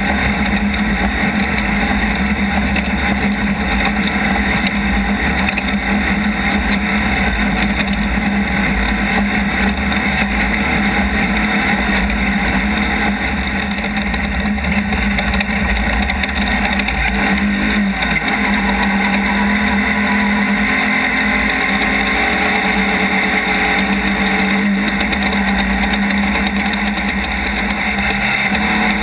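Off-road race car engine running hard at steady high revs, with the revs dipping briefly and coming back up about two-thirds of the way through.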